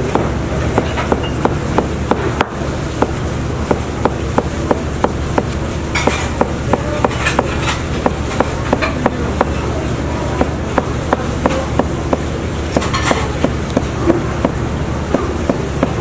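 Large kitchen knife chopping through folded, floured kalguksu noodle dough onto a cutting board in quick, even strokes, about three a second, over a steady low background hum.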